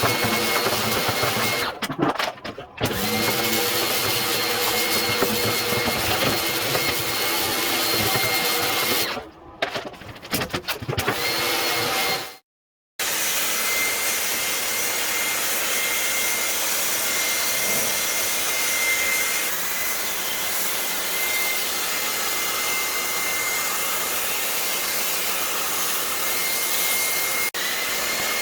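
High-pressure washer running, a steady motor whine over a spray hiss, cutting out briefly twice before starting up again.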